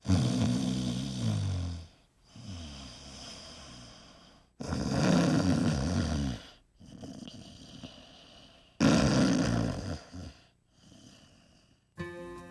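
A person snoring: three loud snores about four seconds apart, each falling in pitch, with quieter breaths between them. Music comes in near the end.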